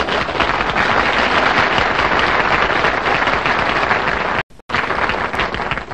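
Studio audience applauding, an even, steady clapping that cuts out for a split second about four and a half seconds in.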